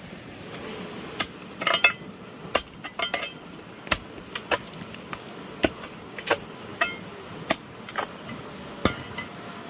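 Hand hammer striking in uneven blows, about seventeen sharp knocks, some in quick bunches of two or three, as in building or foundation repair work.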